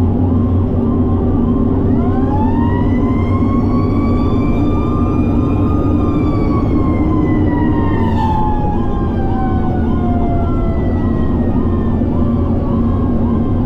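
Fire engine running with its siren on a fast, steady yelp, while a second siren tone winds up over a few seconds, holds, then slowly winds down. A steady low engine and road rumble runs underneath.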